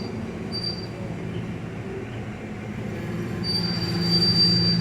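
Passenger train rolling along with a steady low rumble; about three and a half seconds in, a thin, high steel-wheel squeal sets in and holds.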